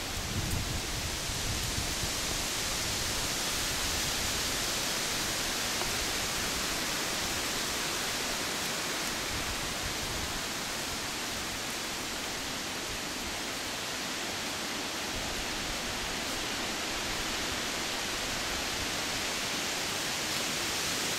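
Steady, even hiss of noise with no distinct event; no shot or other sudden sound stands out.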